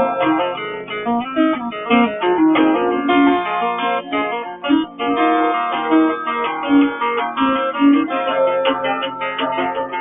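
Solo acoustic guitar playing an instrumental folk tune, a quick, continuous run of picked notes and chords.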